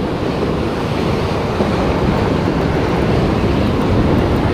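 Sea surf breaking and washing over rocks, a steady rushing noise, with wind buffeting the microphone.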